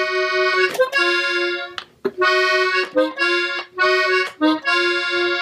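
Gabbanelli button accordion tuned in E, played slowly in the key of B major: phrases of held notes and chords with brief breaks between them, the longest about two seconds in.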